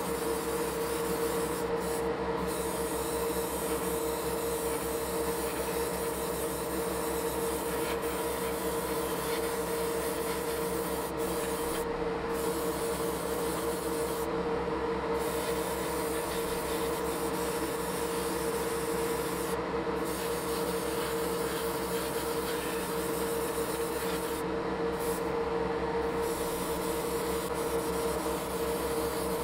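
Airbrush hissing as it sprays paint, over a steady motor hum from the spray booth equipment. The hiss cuts out briefly several times as the trigger is let go.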